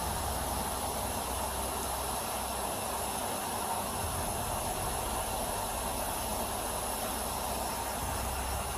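Steady hiss over a low rumble from idling patrol cars, picked up by a body-worn camera's microphone.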